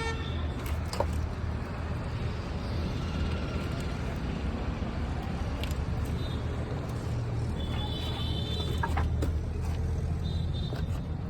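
A large engine running steadily at a low hum, with scattered knocks and clicks and a few brief high squeaks.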